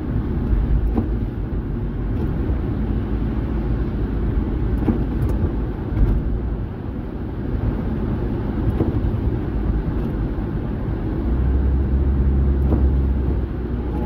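Car cabin noise while driving on a wet, snowy road: a steady low rumble of engine and tyres, growing a little louder near the end.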